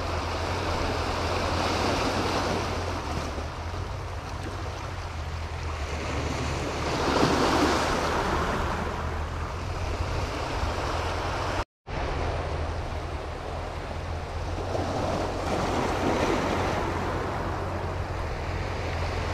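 Small sea waves washing in over a concrete-block breakwater, swelling and easing every few seconds, with a steady low rumble of wind on the microphone. The sound drops out completely for a moment about two-thirds of the way through.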